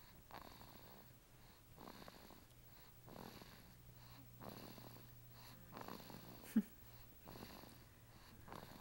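A sleeping person snoring quietly, a rough breath sound repeating about every second and a half. A brief sharp sound stands out about two-thirds of the way through.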